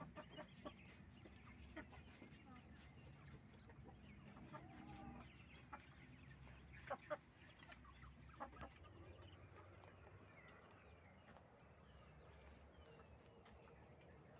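Faint, scattered clucks and short calls from domestic fowl, with a louder pair of calls about seven seconds in and a series of short falling chirps near the end.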